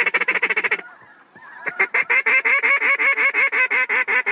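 A hand-blown waterfowl call worked in two fast runs of rapid, evenly spaced notes, about ten a second, with a short pause about a second in. Fainter calls of circling waterfowl are heard in the gap.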